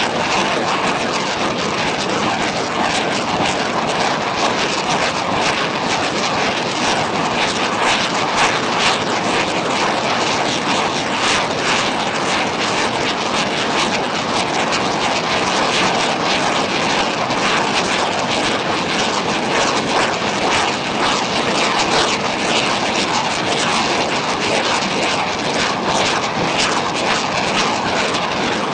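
A multiple rocket launcher ripple-firing a long salvo of 122mm rockets: one rocket motor ignites after another so quickly that the launches merge into one continuous, loud rushing noise with a fine crackle, holding steady without a pause.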